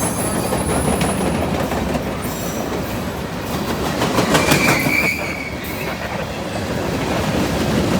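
Norfolk Southern freight train's cars rolling past at speed, a steady loud rumble with wheels clacking over the rail joints. A short high-pitched wheel squeal lasts about a second, roughly halfway through.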